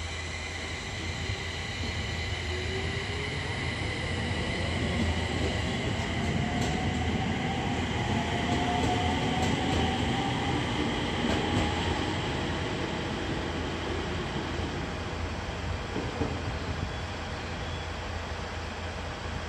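Electric train accelerating along the station tracks: its motor whine rises in pitch over several seconds and grows louder toward the middle, then fades, with a few faint clicks.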